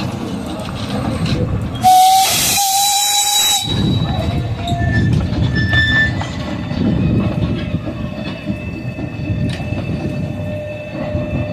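Small narrow-gauge steam locomotive Ant giving one steam whistle blast of about a second and a half, two seconds in, then running as it pulls its coach away, with thin squeals from the wheels on the curved track.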